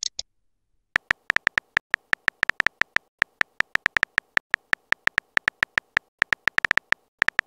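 Phone keyboard typing sound effect: a rapid run of short, tonal electronic clicks, one per keystroke, about six or seven a second, starting about a second in.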